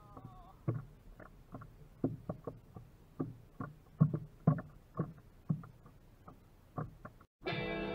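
Small waves slapping irregularly against the hull of a fishing paddleboard, a few light knocks a second. Music starts suddenly near the end.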